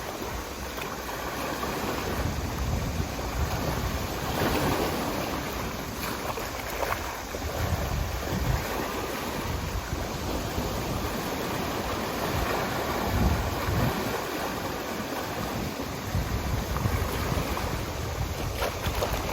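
Sea waves washing and breaking on a shore in a steady wash of surf, with gusts of wind rumbling on the microphone.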